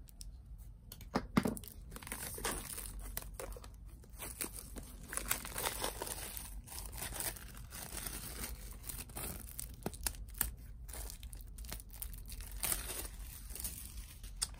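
Plastic shrink-wrap on a CD album being slit with a small craft blade and peeled off, crinkling and tearing irregularly, with a sharper crackle about a second and a half in.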